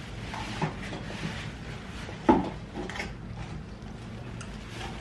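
A few light knocks and clatters, one clearly louder a little past two seconds in, over a low steady hum.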